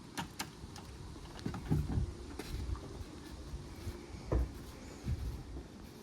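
Scattered knocks, thumps and clicks from unloading a van's cargo of buckets, with the engine off. The loudest thuds fall around two seconds in and again a little after four seconds.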